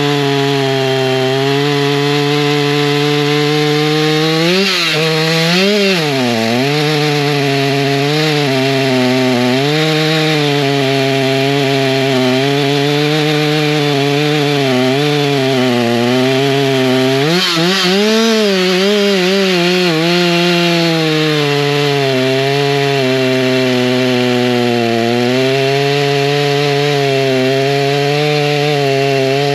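Stock Stihl MS290 two-stroke chainsaw running at high throttle while cutting through a log. The engine note sags and recovers several times as the chain loads up in the wood, most clearly about five and eighteen seconds in.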